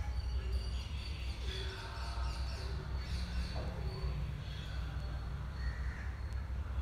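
Steady low hum of room background, with faint bird chirps scattered over it.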